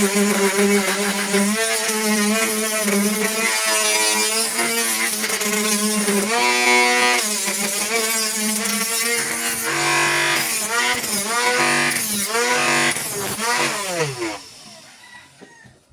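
Homemade drill's 775 DC motor whining, its pitch repeatedly rising and falling as it speeds up and slows. It winds down with a falling pitch and stops about fourteen and a half seconds in.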